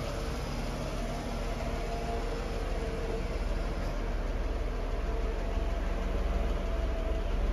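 Steady mechanical hum from the 1995 Mercedes E320 Cabriolet, with a faint whine held at a constant pitch and no change in speed.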